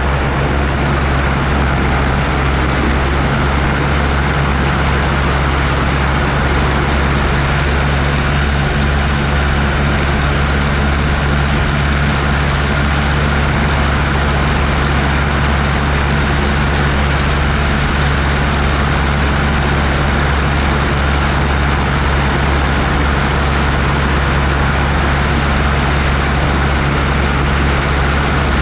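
MTO Sport gyroplane's engine and pusher propeller running steadily, a constant low drone with no change in pitch.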